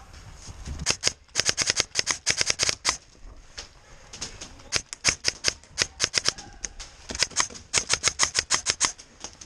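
Airsoft guns firing in three rapid strings of sharp snapping shots, several a second.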